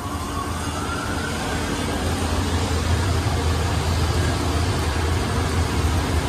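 D&S 5000 touchless car wash gantry running as it travels along a pickup. Its pump and motors give a steady low hum under a continuous hiss of spray on the truck, with a faint rising whine in the first couple of seconds. The chemical is going on as plain water because no air is reaching the foam applicator.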